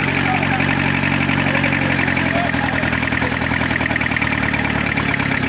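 Diesel engine idling steadily, with a fast, even firing beat.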